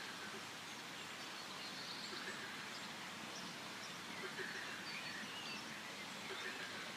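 Forest ambience: a steady background hiss with many faint, scattered bird chirps and short calls.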